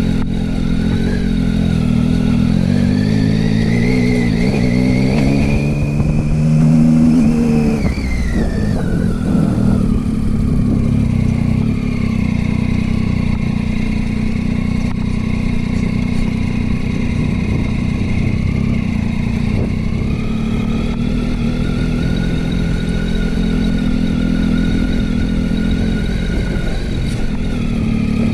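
Motorcycle engine running under way, its note climbing over the first several seconds, dropping about eight seconds in, then holding fairly steady with a small rise later on.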